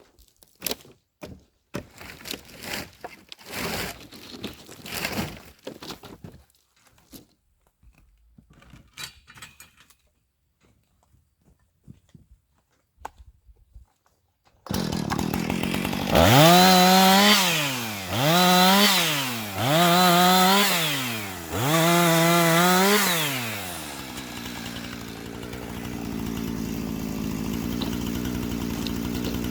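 Chainsaw: first scattered knocks and clatter, then the saw starts about halfway through. It is revved up and back down four times in quick succession, short cuts through the slabs, and then idles steadily.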